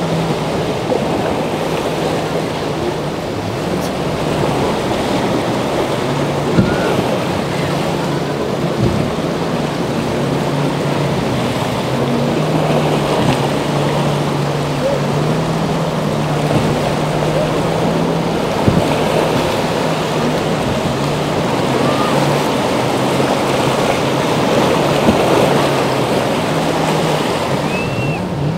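Surf and wind noise on the microphone, with the steady low drone of a boat's engine running under it.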